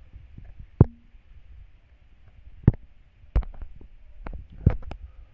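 Handling noise on the recording device: four sharp knocks and bumps, with a few lighter taps between them, typical of fingers tapping and shifting the device to take photos while it records.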